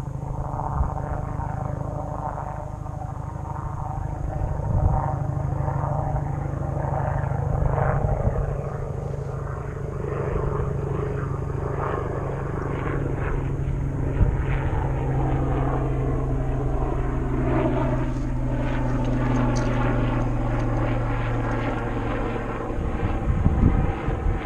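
A motor engine drones steadily with a low hum, its higher tones sliding slowly down in pitch over the last few seconds before the hum cuts off near the end.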